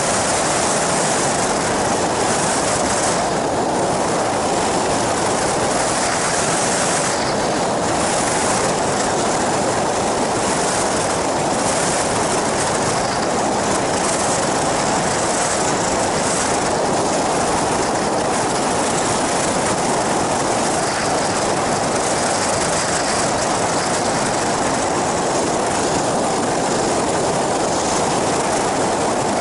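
Ultralight flying boat's engine and propeller running steadily in level flight, mixed with wind rushing past, as one loud, unbroken noise.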